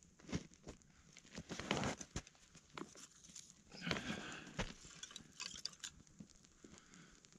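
Rustling, crunching and a scatter of sharp clicks as sticks of dry kindling are picked up and handled beside a small, newly lit campfire. The loudest rustles come about two and four seconds in.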